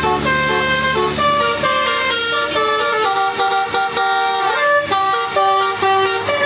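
Bus 'telolet' horn, a multi-tone air horn playing a tune: loud held notes stepping from pitch to pitch several times a second.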